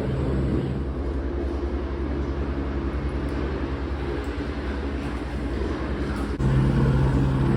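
Helicopter in flight heard from inside the cabin: a steady, loud drone of engine and rotor with a fast low pulsing, stepping louder about six and a half seconds in.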